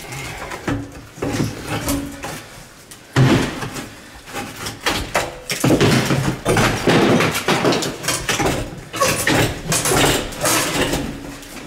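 A small wall safe being wrenched back and forth by hand in its wall opening, knocking and rattling irregularly against the wood framing and broken plaster.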